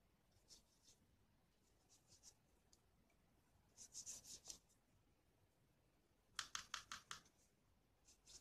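Faint scratchy strokes of a watercolour brush on paper, in a few short quick clusters, the loudest about two thirds of the way through.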